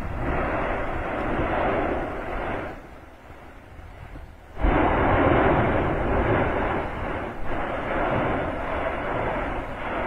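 La Palma volcano erupting: a loud, continuous rushing roar from the vent. It dips away about three seconds in, comes back abruptly a little before halfway, and then carries on in uneven surges.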